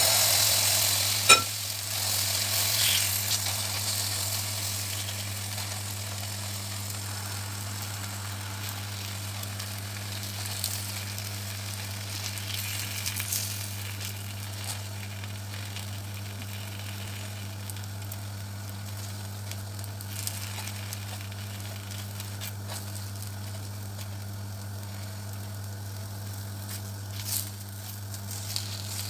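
Gözleme batter sizzling in a hot oiled frying pan. It is loudest as the batter goes in, then settles to a steady, gentler frying sizzle, with a sharp clink about a second in and a few faint clicks later.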